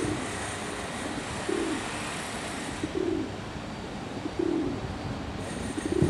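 Pigeon cooing: short low coos about every second and a half, over a steady hiss.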